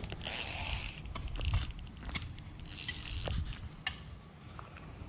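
Spinning reel being cranked to bring in a hooked peacock bass, with scattered clicks and two short hissing bursts, one at the start and one about three seconds in.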